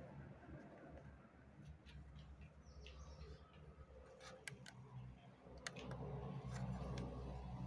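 Quiet handling of a small MP3 decoder board with a plastic front panel: faint rubbing and ticks from fingers on the board, with two sharp clicks a little past the middle, over a low steady hum.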